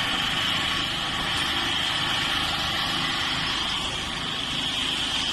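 Asphalt recycling repair machine's engine running steadily, with a constant high hiss over the low engine hum.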